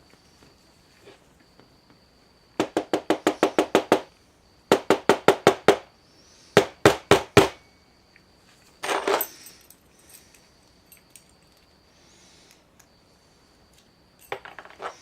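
Quick runs of sharp metallic taps on a disassembled ACE padlock: a run of about ten fast taps, then about seven, then four, a short clatter a little later and another brief run near the end, as the parts are knocked to free the pins.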